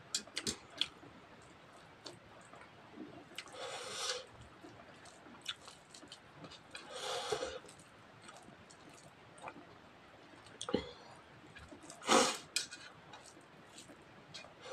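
Eating rice by hand: mouth-close chewing and fingers mixing rice on a plate, with scattered small clicks and three louder rustling bursts spread through it.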